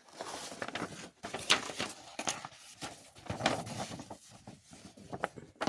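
Sheets of a miniature house kit's printed paper and punch-out board being handled: irregular rustling and sliding with light taps and clicks as the sheets knock against each other.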